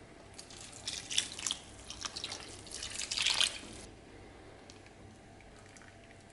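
Water poured from a plastic bottle into a pot of cooking dumplings, splashing unevenly for about three and a half seconds. After that it goes quiet apart from a couple of faint ticks.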